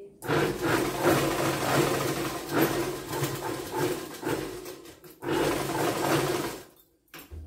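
Electric sewing machine running at speed as it stitches fabric, in two runs: a long one of about four and a half seconds, then after a short pause a second of about a second and a half. A short knock follows near the end.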